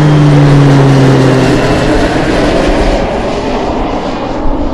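Airplane flying by, inserted as a sound effect: a loud, steady engine rush with a low hum that sinks slightly in pitch, fading gradually.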